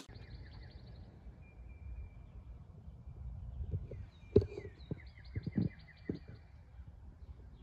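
Small birds chirping and trilling in short repeated phrases over a steady low rumble. About four seconds in there is one sharp knock, followed by a few softer knocks and taps a second later, as the contents of the cardboard box are handled.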